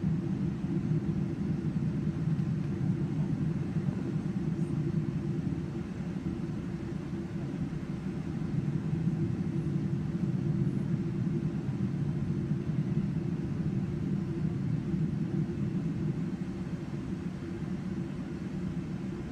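Steady low rumble inside the passenger cabin of a Boeing 777-200 taxiing with its engines at low taxi thrust.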